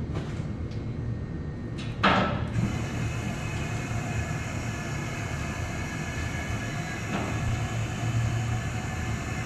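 A single sharp knock about two seconds in, after which a steady machine noise with a hiss and a few faint high tones starts up and keeps running over a low steady hum.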